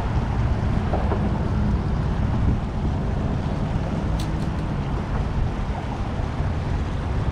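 Steady low rumble of wind buffeting the microphone, with a faint brief click about four seconds in.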